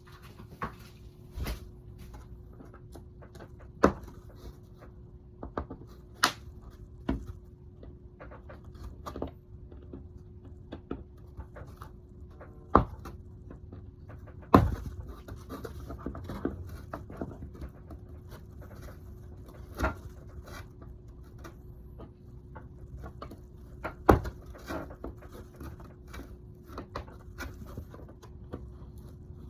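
Irregular taps, clicks and knocks of tools and materials being handled during hand work, over a faint steady hum.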